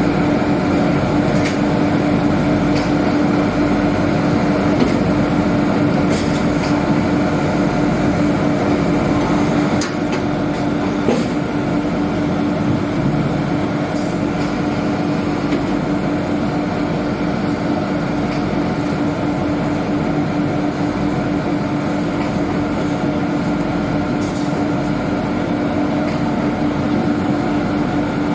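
Hydraulic shavings baler running: a steady machine hum with a strong held tone, and a few sharp clicks and knocks scattered through it.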